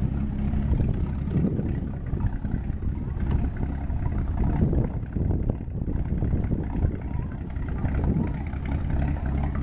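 M29 Weasel's Studebaker six-cylinder flathead engine idling steadily.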